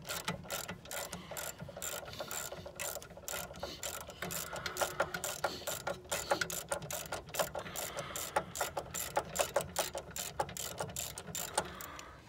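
Hand ratchet wrench clicking as a bolt is turned, in runs of quick strokes with short pauses between them.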